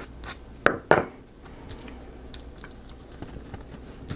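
Small wooden parts knocking and clicking together as they are handled and fitted: two sharp knocks close together about a second in, then scattered light ticks.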